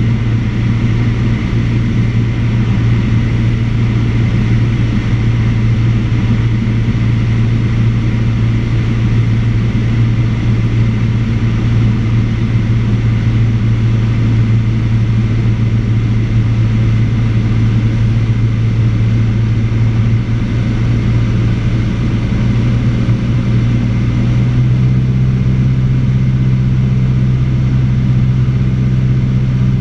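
Cessna 172 Skyhawk's piston engine and propeller droning steadily in cruise, heard from inside the cockpit. Its tone shifts slightly near the end.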